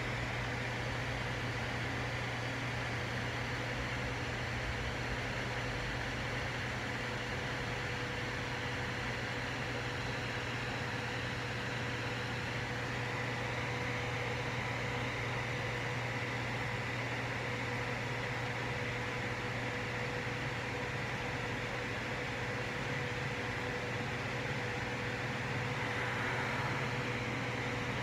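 A steady machine hum with hiss, carrying a few faint high steady tones.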